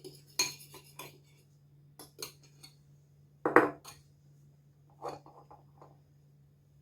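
A utensil clinking and scraping against a bowl of thick homemade paste, in scattered taps and knocks, the loudest about three and a half seconds in. A faint steady low hum runs underneath.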